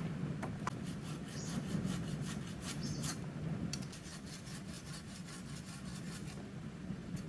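A hand tool rasping through wood in quick, even strokes, about five a second, which stop about six seconds in.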